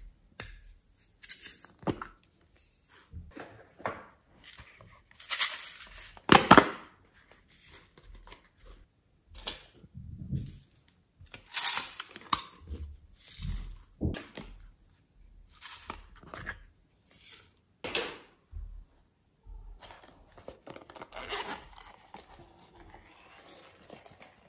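Small plastic toy containers being handled and opened: a series of irregular clicks, snaps and scrapes of plastic cases and lids.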